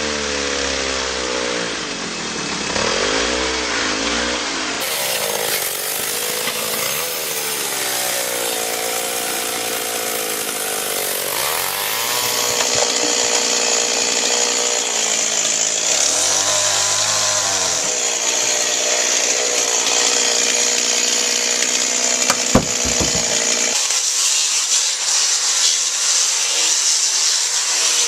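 Chainsaw running and cutting wood, its engine pitch rising and falling as it bites into the log. There is a sharp knock near the end.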